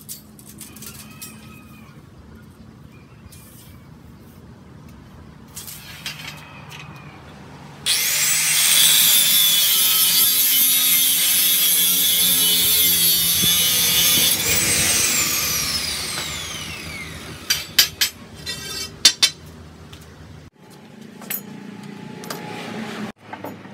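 Angle grinder spinning up and cutting through a galvanized steel pipe about eight seconds in for some six seconds, then winding down with a falling whine when released. A few sharp knocks follow.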